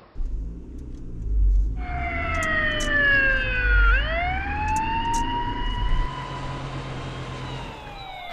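Police car siren wailing: its pitch falls, sweeps back up about four seconds in, holds, then falls again near the end. Under it runs the low rumble of a car.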